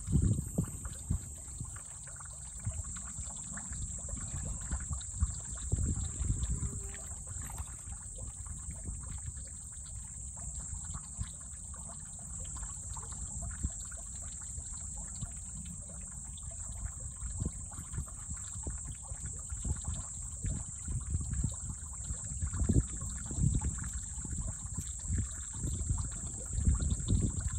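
Shallow pond water sloshing and splashing as two common snapping turtles thrash and roll against each other, swelling in bursts near the start, around six seconds in, and again near the end. A steady high insect drone runs underneath.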